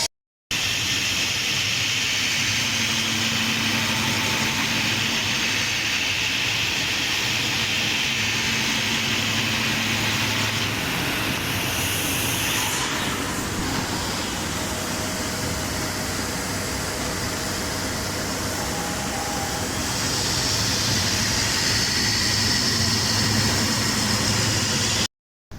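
Steady factory machinery running: a continuous low hum under a strong hiss, with a brief drop-out right after the start and again just before the end.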